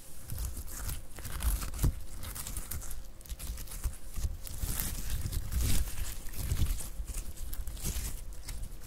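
Orange homemade slime squeezed, kneaded and pulled apart by hand close to a stereo microphone: an irregular run of sticky squelches and small popping clicks.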